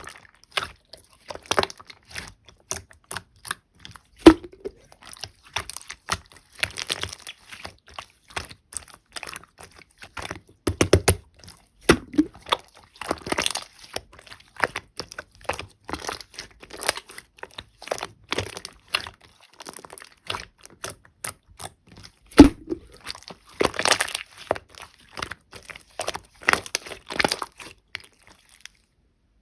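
Slime being squished, pressed and stretched by hand, with many small sticky clicks and crackles and three louder pops.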